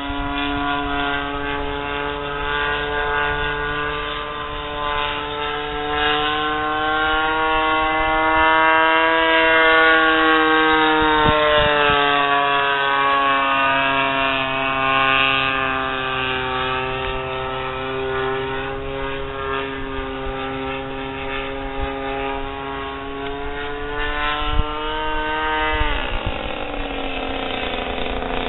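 Balsa USA Stingray 120 RC model airplane's engine running in flight, a steady propeller drone whose pitch rises slowly and then eases off. Near the end the pitch drops sharply.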